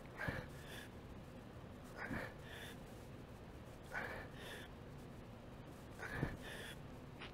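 A man breathing hard in time with the reps of a seated dumbbell shoulder press: four short, forceful breaths about two seconds apart.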